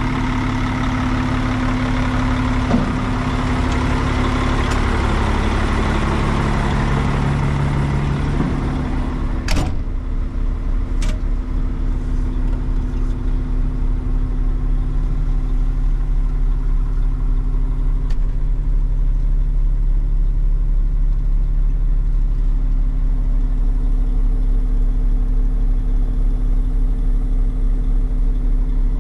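The diesel engine of a 2003 Western Star quad-axle dump truck idling steadily. It is heard first from outside the truck and then, after a sharp click about nine and a half seconds in, from inside the cab, where it sounds duller.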